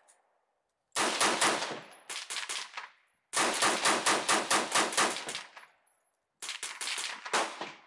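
Scoped AR-15-style rifle fired in four rapid strings of shots, about five shots a second, with short pauses between the strings.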